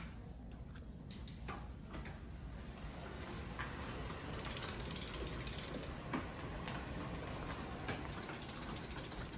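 Drift trike rolling across a hard floor, its wheels and drive making a steady mechanical clatter with scattered clicks, growing louder a few seconds in.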